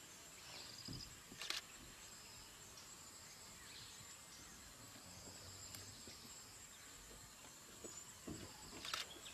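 Near silence: faint outdoor ambience with a steady high insect note and a couple of soft clicks.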